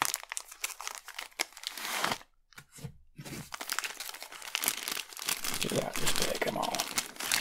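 Clear plastic parts bag crinkling and rustling as hands open it and shake the kit pieces inside, with a short pause about two seconds in.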